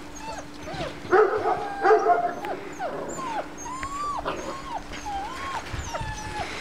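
Bernese mountain dog puppies whimpering, a string of short high whines about every half second, with a burst of louder yips about a second in.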